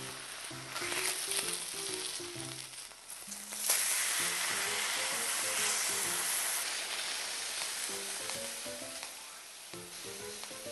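Meat sizzling and frying on a hot grill. The sizzle swells suddenly and loudly about four seconds in, then eases off toward the end. Light background music plays underneath.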